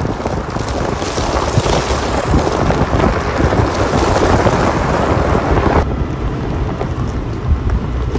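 Toyota 4Runner driving on a rough unpaved road: a steady rumble of tyres and body with wind noise on the microphone. About six seconds in the higher hiss cuts off abruptly, leaving only the low rumble.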